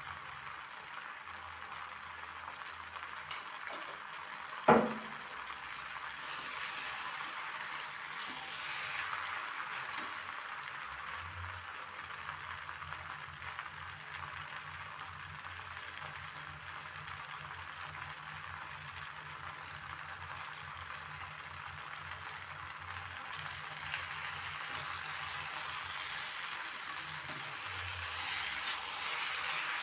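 Food sizzling in a cooking pan, a steady hiss with one sharp loud knock about five seconds in.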